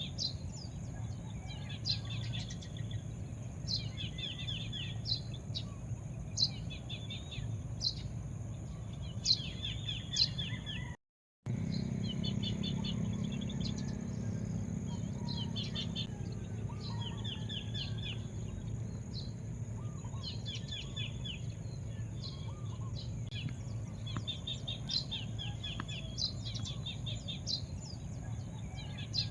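Small birds chirping in repeated short trilling bouts every second or two, over a steady high-pitched hum and a low rumble. The sound drops out briefly about eleven seconds in.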